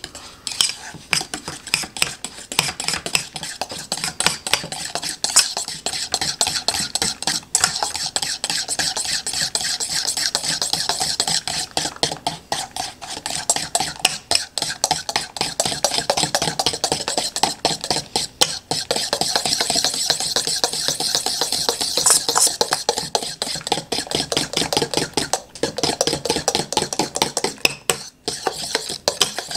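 A fork stirring powdered cocoa mix and heavy cream in a stainless steel bowl: quick, continuous scraping and clinking of metal on metal, several strokes a second, easing off briefly near the end.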